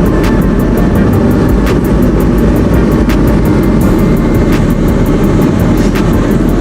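Loud, steady rumble of a car on the move: road and wind noise.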